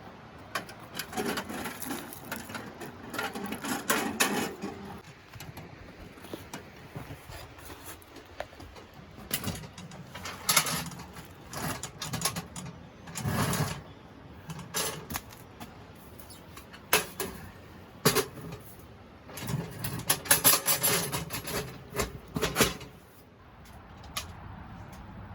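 Irregular knocks, clicks and clatter of camp gear and wood being handled while a fire is started in a wood stove, coming in short clusters.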